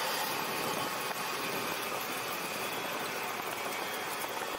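Cessna 172's engine and propeller running steadily at low power during the landing rollout, heard inside the cockpit as an even noise.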